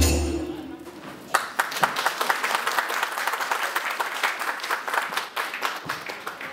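The last of the dance music fades out, and about a second in an audience starts applauding: many people clapping steadily in a hall.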